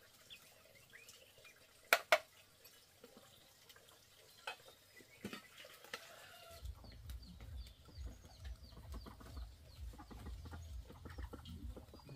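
Faint bird calls against quiet rural ambience, with two sharp knocks about two seconds in; a low rumble sets in after about six and a half seconds.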